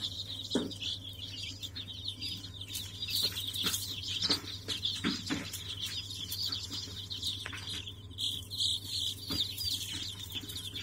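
A brood of young chicken chicks peeping continuously, many short high chirps overlapping into one steady chatter, over a steady low hum, with a few soft knocks here and there.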